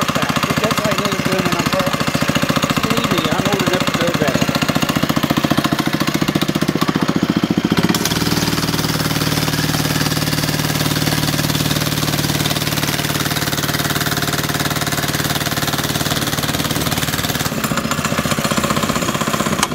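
A Doodle Bug mini bike's 97cc single-cylinder engine running steadily under throttle while its centrifugal clutch slips and heats up against the load. Its note changes about eight seconds in.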